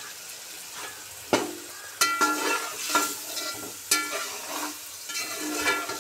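A metal spatula stirs and scrapes chicken in sizzling masala in a metal pot. It knocks against the pot several times, about once a second, each knock leaving a short metallic ring over the frying sizzle.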